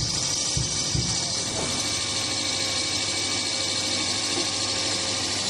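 Pet food pellet extruder running steadily, a constant hiss over a low hum. Two low thumps come about half a second and a second in.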